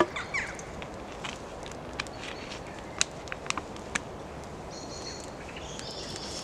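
Wood campfire crackling, with a few sharp pops about two to four seconds in. A bird calls high and thin from a little past the middle.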